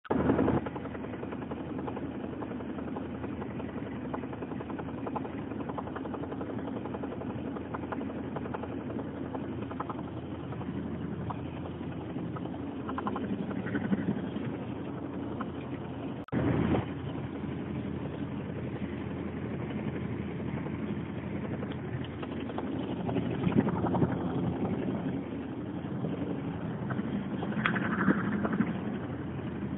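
Skoda Octavia driving above 100 km/h, with steady road and engine noise and a weird "flap flap" noise from the car.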